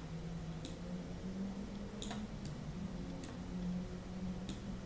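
Computer mouse clicking: a handful of short, sharp clicks at uneven intervals over a low steady hum.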